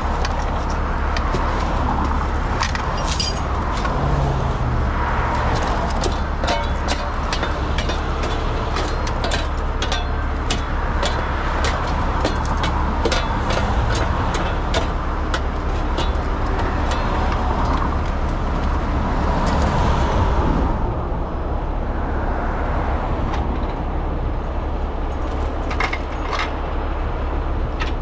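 Heavy tow truck's diesel engine running steadily, with repeated metallic clinks and rattles of chain and rigging being handled.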